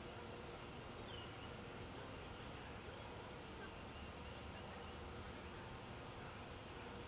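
Faint, steady outdoor background: a low hum under a haze of noise, with a few brief faint high chirps about a second in.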